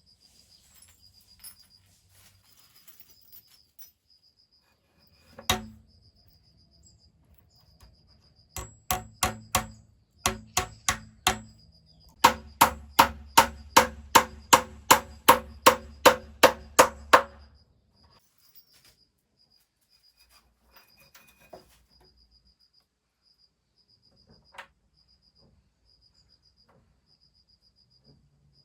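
Hammer blows. One strike comes first, then a quick run of about six, then a steady run of about fifteen at roughly three a second. A cricket chirrs faintly in pulses throughout.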